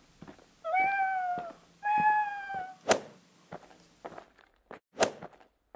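A cat meowing twice, each meow just under a second long and falling slightly in pitch, followed by two sharp knocks about two seconds apart.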